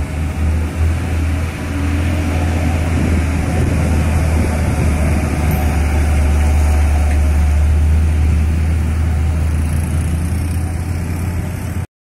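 Heavy diesel box truck engine running as the truck rounds the bend close by, a steady low rumble that grows a little louder toward the middle and cuts off suddenly near the end.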